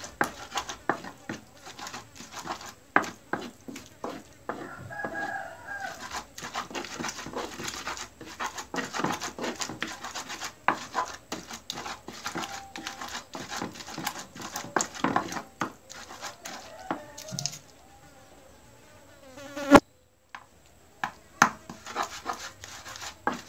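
Chilies being ground by hand with an ulekan pestle in a cobek mortar: a fast, uneven run of knocks and scrapes. There is a quieter stretch near the end, then one sharp knock.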